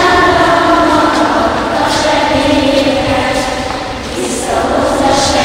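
A group of voices singing a song together, with long held notes and a slight dip in loudness about four seconds in.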